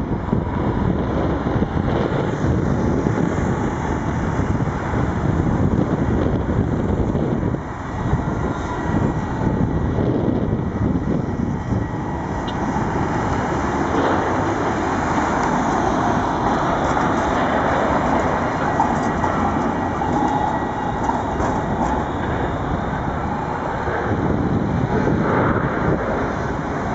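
Articulated low-floor trams and road traffic passing on a city street, with wind rumbling on the microphone. A tram rolling by close up becomes more prominent about halfway through.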